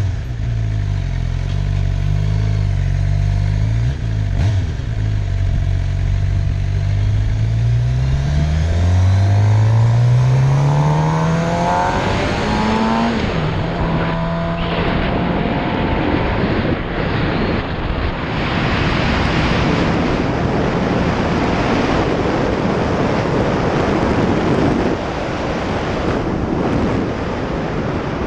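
A vehicle's engine running steadily, then rising in pitch as it speeds up. About twelve seconds in, heavy wind noise on the GoPro Hero4 Session's microphone takes over and buries the engine.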